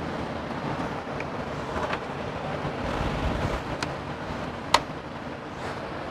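Steady background noise with a few light clicks of parts being handled and fitted at the engine's intake, one sharper click a little before the end.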